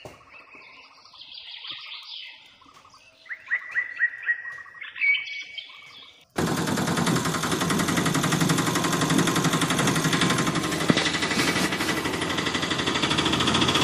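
Birds chirping in short runs of calls. About six seconds in, this cuts abruptly to a loud, steady, fast-pulsing engine sound effect.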